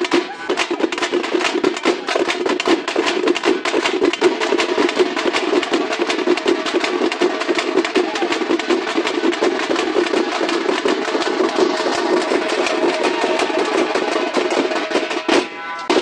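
Stick-beaten drums played at a fast, dense, driving rhythm for dancing, with a short break in the beat near the end.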